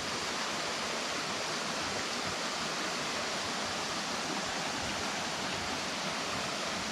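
Steady rush of a stream's running water, an even, unbroken hiss.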